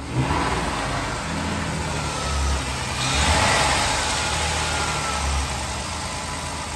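Jeep Wrangler engine running at idle with a steady, even sound, which the owner finds sounds pretty good. It grows louder for a moment about three seconds in.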